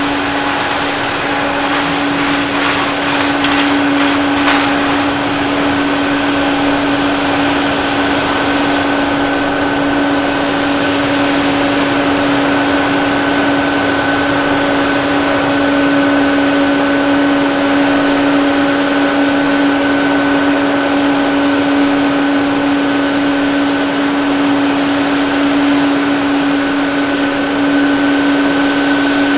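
Boeing 787-9's twin Rolls-Royce Trent 1000 turbofans at takeoff thrust, through the takeoff roll, liftoff and climb-out: a steady jet roar with a constant low hum and fainter higher whines running through it.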